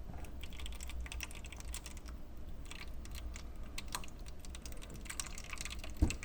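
Scattered light clicks and taps over a low steady hum as water is topped up in a humidifier's tank, with one louder knock near the end.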